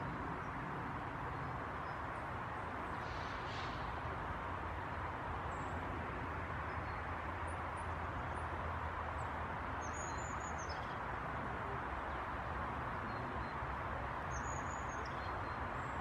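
A few faint, thin, high-pitched calls of small woodland birds: scattered short chirps, then two brief calls, one about ten seconds in and one near the end. They sit over a steady low rumble and hiss.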